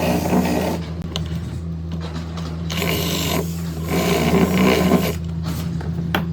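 A machine motor hums steadily while scraping, rasping passes come and go, one near the start and two more in the middle, with a few sharp ticks.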